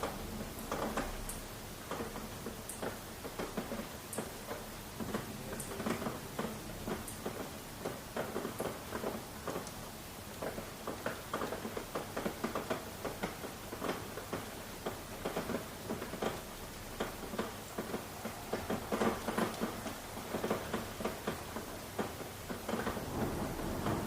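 Rain falling, with many irregular drops tapping on a surface, the taps coming thicker in the second half.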